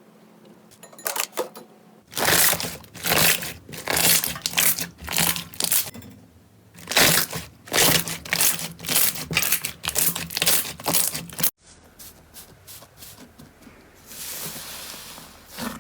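Crunchy slime being pressed and squeezed: repeated crackling crunches, about two a second, that stop abruptly after about eleven seconds, followed by quieter, softer handling.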